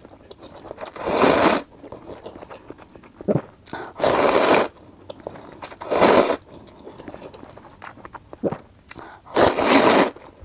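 A person slurping instant noodles from a cup in four loud, noisy slurps, the first about a second in and the last near the end, with soft chewing between them.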